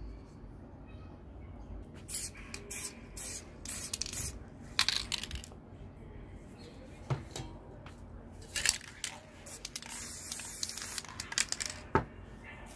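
Aerosol spray paint cans hissing in a series of short bursts, with a longer burst about ten seconds in. Two sharp knocks stand out, one about seven seconds in and a louder one near the end.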